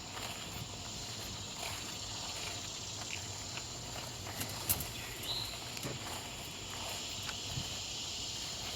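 Steady outdoor chorus of cicadas, mostly Robinson's cicadas, a continuous high buzzing hiss, with a few faint ticks and one short high note about five seconds in.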